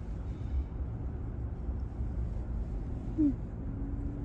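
Low, steady rumble of distant engines.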